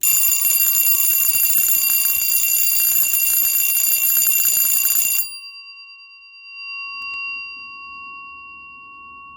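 Edwards 4-inch Adaptabel model 340 vibrating school bell ringing loud and continuously for about five seconds, its striker rapidly hitting the gong; it cuts off sharply and the gong rings on with a clear tone that slowly fades. The bell is in good working order.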